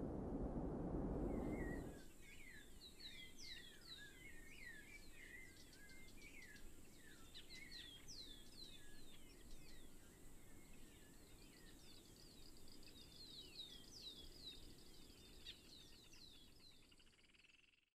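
A low rushing noise cuts off about two seconds in. Then comes soft birdsong: many quick chirps and short rising and falling whistles, fading out at the end.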